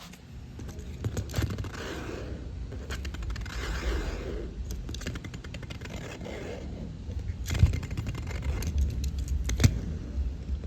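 Plastic and cardboard toy car packaging being handled and torn open: irregular crinkling, scraping and clicking, with a few sharper clicks in the second half.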